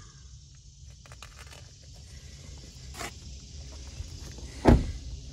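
Light rustling and a few soft clicks, then a single heavy thump near the end as the Toyota Corolla's front door is shut.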